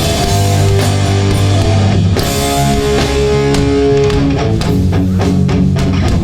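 Hardcore punk band playing live and loud: distorted electric guitars and bass holding chords over a drum kit. The drum hits stand out more in the last couple of seconds.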